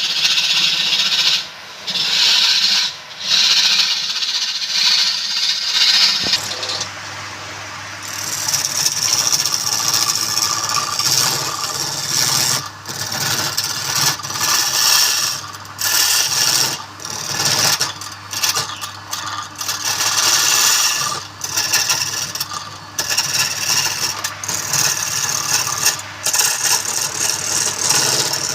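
A wood lathe running while a turning tool scrapes and cuts the spinning wood in repeated passes, broken by many short pauses. A steady low hum joins about six seconds in.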